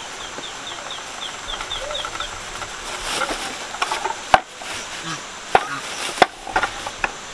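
Black plastic bag rustling and crinkling as it is handled and opened, with several sharp crackles in the second half. An insect chirps about four times a second for the first two seconds.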